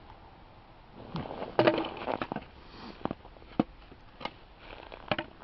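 A thin wooden board cracking and splitting as a strip is broken off it, a dense crackle with some creak, about a second and a half in. Then come three separate sharp knocks of wood.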